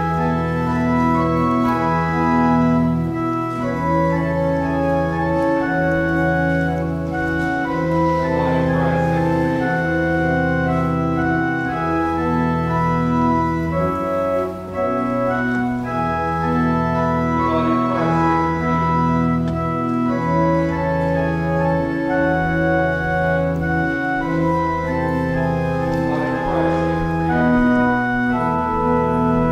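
Organ music: slow, sustained chords that change every second or two over held bass notes.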